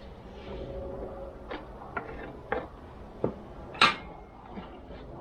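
Scattered clicks and knocks of small hard parts and tools being handled on a workbench, about five in all, the sharpest one about four seconds in.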